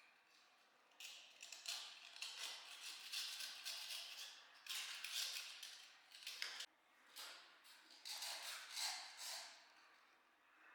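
Faint, repeated rough scraping strokes in uneven runs, breaking off briefly about two-thirds of the way through.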